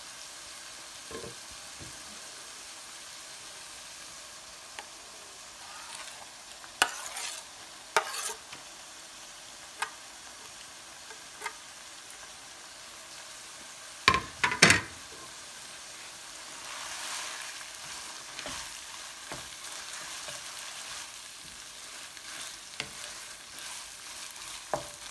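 Chopped tripe and offal for dulet sizzling steadily in a frying pan while being stirred, with a few sharp clinks and scrapes of the utensil against the pan, the loudest two close together a little past the middle.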